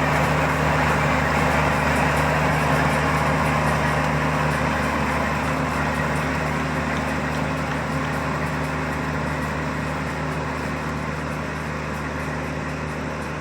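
Kubota DC 35 combine harvester's diesel engine running steadily under a broad mechanical noise, slowly getting quieter.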